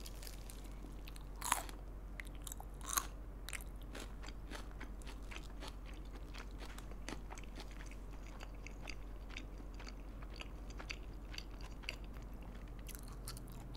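Close-miked chewing of a piece of green chili pepper. There are two louder crunches about one and a half and three seconds in, then a steady run of soft mouth clicks.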